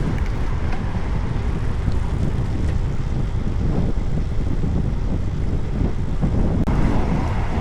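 Strong wind buffeting the microphone while cycling, a loud steady low rumble.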